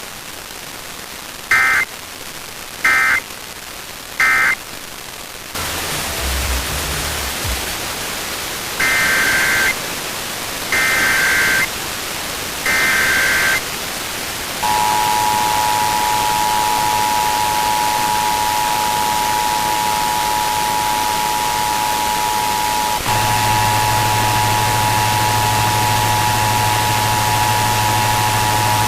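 Emergency Alert System signals received over broadcast radio amid steady static hiss: three short warbling data bursts (the end-of-message code), a few seconds of hiss, then three longer data bursts (the SAME header of the next alert), followed from about halfway through by the steady two-tone EAS attention signal, joined by a low hum in the last few seconds.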